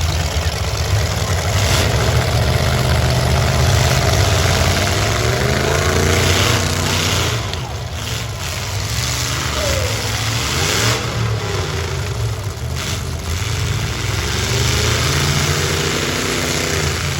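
Several stock V8 car engines running and revving at once, their pitches rising and falling as the cars accelerate and back up, with a few sharp bangs of cars hitting each other.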